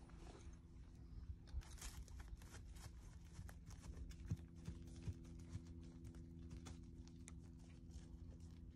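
Faint, scattered soft thuds and clicks of a horse's hooves as it moves off across grass under a rider, a few louder strikes among them, over a low steady hum.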